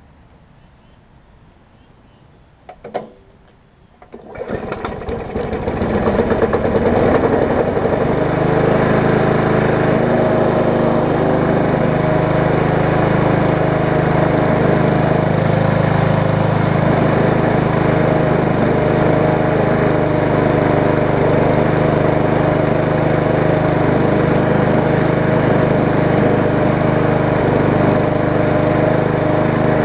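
Briggs & Stratton Classic single-cylinder push-mower engine being pull-started with a shot of carb cleaner in the intake: a short sputter about three seconds in, then it catches about a second later, stutters up to speed and settles into a steady run.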